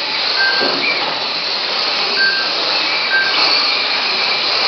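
Electric mini-class RC cars racing, their motors giving a steady whine, with short high beeps every second or so.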